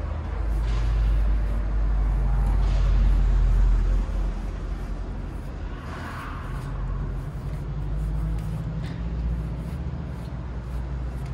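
A low, steady mechanical rumble with a hum to it, louder for the first four seconds or so and then settling a little lower.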